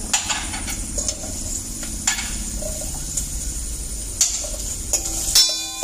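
Metal spoon clinking and scraping on a plate and pot rim as chopped vegetables are tipped into a pot of hot oil, a few sharp clicks with the loudest about five seconds in, over a steady sizzle of onions frying.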